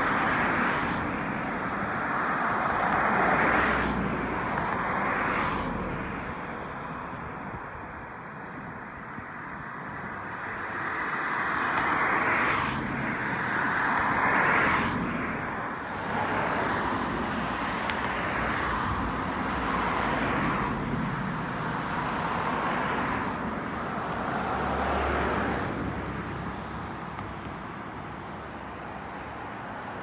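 Road traffic: cars passing one after another, the noise swelling and fading every few seconds.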